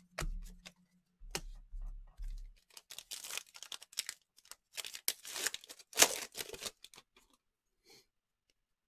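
Foil wrapper of a Contenders Draft Picks trading-card pack being torn open and crinkled, with a few soft knocks and clicks of handling in the first couple of seconds. The crackling tear comes in from about three seconds and is loudest near six seconds.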